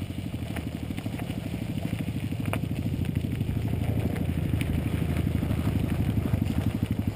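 Dirt-bike engines running at low speed as motorcycles ride up the trail, a steady rapid putter that grows louder as they come closer.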